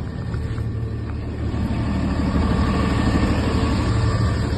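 Refrigerated van's engine idling steadily, getting louder about two seconds in.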